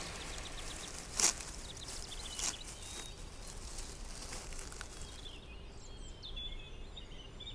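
Quiet rainforest ambience with two sharp taps about a second and a quarter apart in the first few seconds. From about five and a half seconds in come quick high-pitched chirping calls of small birds or insects.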